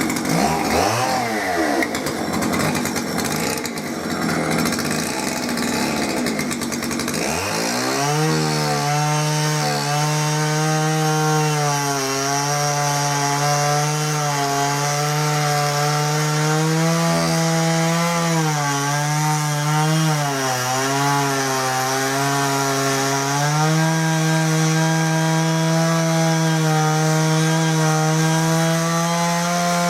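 Oleo Mac 284 two-stroke chainsaw running at high throttle while cutting through a tree stump. A ragged, noisy first quarter gives way to a steady engine tone that dips briefly a few times as the cut loads it.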